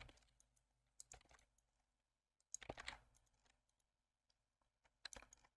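A few faint clicks of a computer keyboard and mouse, in short clusters about one, three and five seconds in, with near silence between them.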